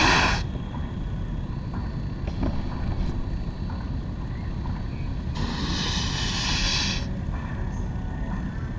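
Steady low rumble of wind buffeting the microphone. A hiss that fits a snowboard base scraping over plastic brush matting (a dry-slope kicker) fades out in the first half second, and a second one runs for about a second and a half about five seconds in.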